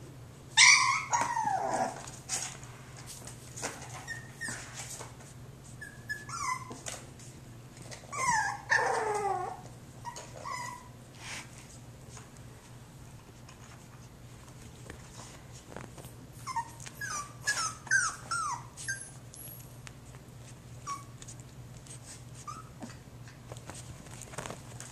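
Jack Russell Terrier puppy giving high-pitched cries that slide down in pitch while it plays with a plush toy: one near the start, another about a third of the way in, then a quick run of short ones about two-thirds through. A faint steady low hum lies underneath.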